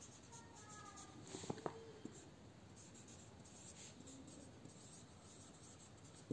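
Faint scratching of a marker pen writing on paper, with a couple of soft clicks about one and a half seconds in.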